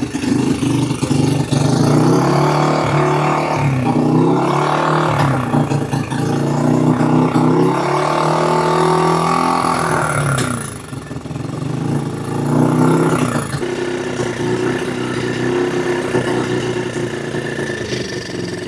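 Yamaha TT-R90's small air-cooled four-stroke single-cylinder engine running unevenly, its speed rising and falling, sagging about ten seconds in, then holding steadier. A hand cupped over the carburettor intake is choking it and working the throttle. The newly fitted Mikuni carb is still untuned, and the engine runs only with the intake covered this way.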